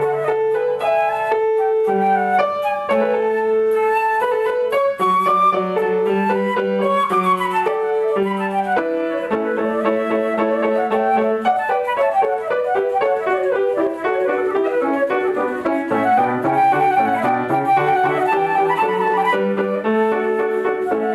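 Flute playing a melody over piano accompaniment.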